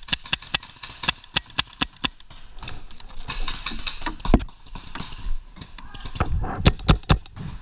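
Paintball marker firing: a quick string of about ten shots at roughly five a second, then a single shot about four seconds in and a burst of four near the end.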